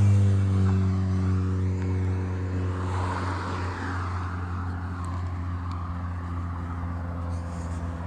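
A steady low engine drone, loudest at first and then slowly sinking in pitch and fading, with the swish of a vehicle passing about three seconds in.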